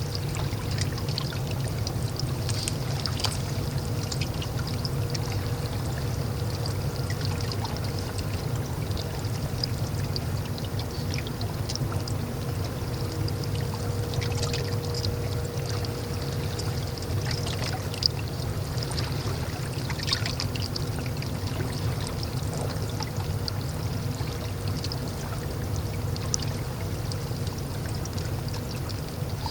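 Water sloshing and trickling at the water's edge, with small irregular splashes and clicks over a steady low rumble.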